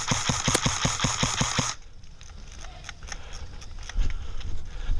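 Airsoft rifle fired in a rapid string of shots, about five a second, that stops a little under two seconds in. Quieter scattered clicks and knocks follow.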